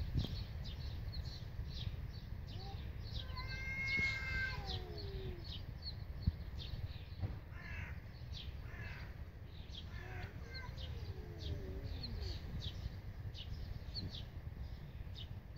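Cats yowling back and forth outdoors: a long drawn-out call that slides downward about four seconds in, and another wavering, falling yowl a little past the middle. Small birds chirp over and over in the background.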